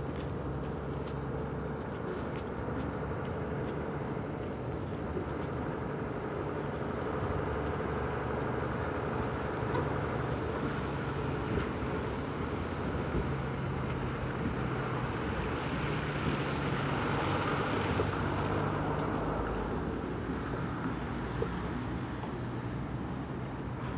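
A steady low engine drone with a few held tones in it, joined by a rush of noise that swells and fades between about 14 and 19 seconds in.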